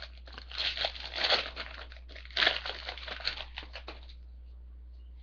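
Trading-card pack wrapper being torn open and crinkled, in two bursts of crackling, stopping about four seconds in.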